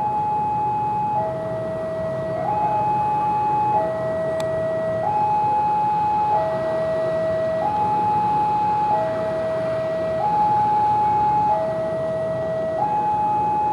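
Railway level-crossing warning alarm sounding a steady electronic two-tone signal, a higher and a lower note taking turns about every second and a quarter, which shows the crossing is closed for a train movement.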